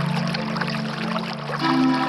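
Slow music of long held chords that changes to a new, higher chord about one and a half seconds in, over the steady rush of a waterfall.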